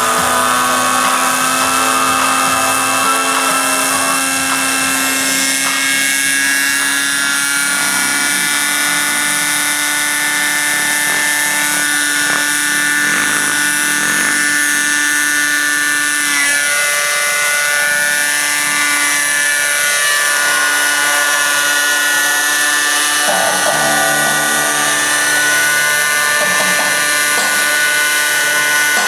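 Radio-controlled model helicopter's engine and rotor running, a steady high-pitched whine whose pitch creeps up slowly, then shifts as the helicopter lifts off near the end.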